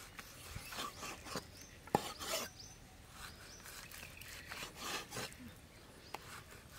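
Cleaver slicing raw beef on a wooden chopping board: irregular soft scraping strokes of the blade through the meat and against the wood, with one sharp tap about two seconds in.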